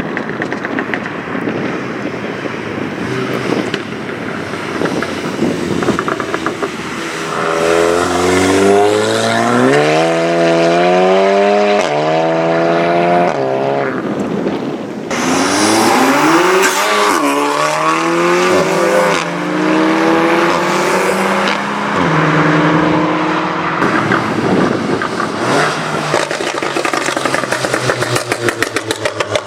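Modified Volkswagen Golf with an aftermarket exhaust accelerating hard, twice, the engine note climbing in pitch through the gears. Near the end a run of rapid crackles from the exhaust.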